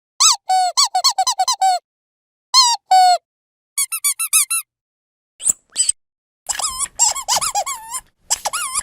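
Rubber squeaky dog toy being squeezed over and over, in quick runs of short squeaks with brief pauses between them. Near the end the squeaking comes thicker, mixed with a rustling rattle.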